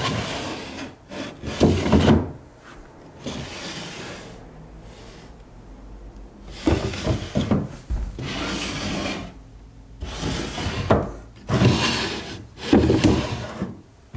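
Wooden drawers of an old chest of drawers being pulled open and pushed shut several times, wood scraping and rubbing on wood as they slide.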